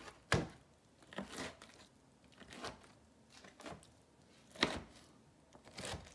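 A kitchen knife cuts soft roasted, peeled peppers on a plastic cutting board. There are about six short knocks, a second or so apart, as the blade comes down through the flesh and meets the board.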